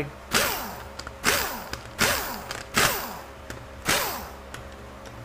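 Power tool with an 8 mm socket spinning the valve body bolts out of a 4R100 transmission, in five short bursts, each one spinning down with a falling pitch.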